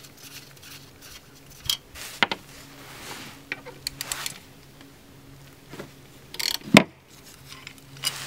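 Scattered metallic clicks and knocks of a socket wrench and loose bolts as the skid plate is unbolted from under a dirt bike's engine, with the loudest knock a little before the end.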